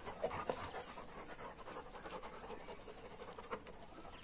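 Several large dogs panting during rough play, with a few faint scuffs and knocks.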